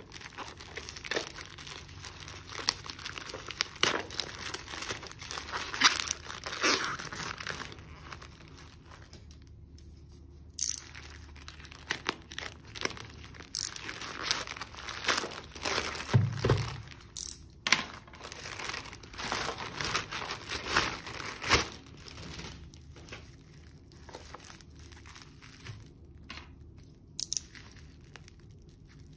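Plastic courier mailer bag crinkling and tearing as it is opened, with plastic wrap rustling near the end. The crackles come irregularly in dense clusters, and there is one dull thump about halfway through.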